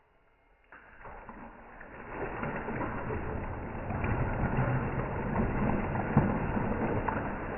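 Boiling hot water and commercial decarbonizer solution in a tray of oven racks, bubbling and crackling as the chemical breaks down burnt-on food. The rumbling noise builds over the first couple of seconds, then holds steady.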